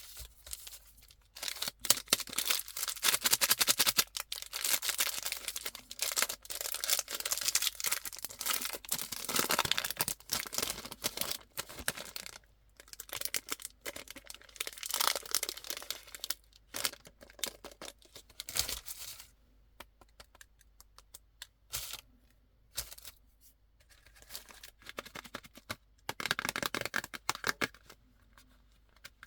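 Candy wrappers and packaging being torn open and crinkled by hand, in long stretches of tearing and rustling. Sharp clicks come through in a quieter spell past the middle, and a last burst of crinkling comes near the end.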